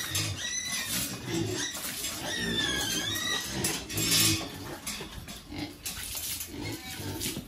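Pigs grunting, with high arching squeals near the start and again around three seconds in. A loud harsh burst comes about four seconds in.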